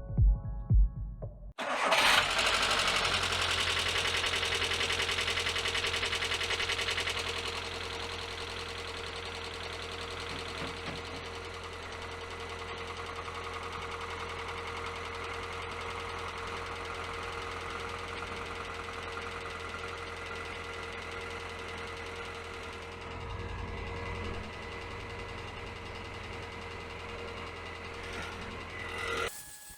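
Rover 400 race car's engine starting about two seconds in and running fast for a few seconds, then settling to a steady idle.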